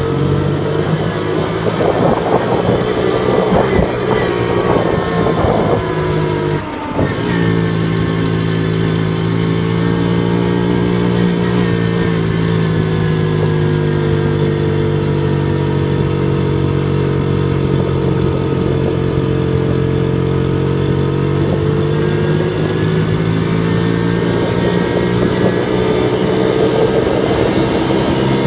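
Honda Z50J Monkey's small air-cooled four-stroke single-cylinder engine running under way at a steady, nearly level pitch that drifts slowly up and down.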